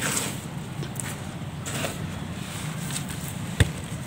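A dried lump of sandy crumbling texture being handled and broken on a concrete floor: a gritty crumble right at the start, then faint scattered grit and small knocks, with one sharp click about three and a half seconds in.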